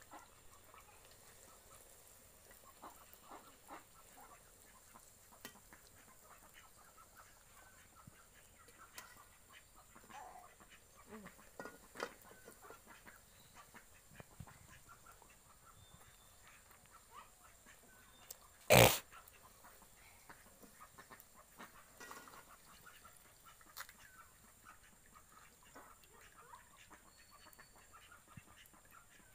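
Quiet outdoor background of faint scattered clicks and occasional soft animal calls, with a single sharp, loud knock about two-thirds of the way through.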